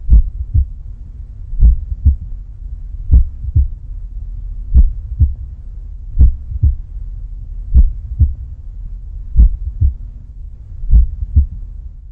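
Heartbeat sound effect: slow paired low thumps, about one pair every second and a half, over a steady low hum.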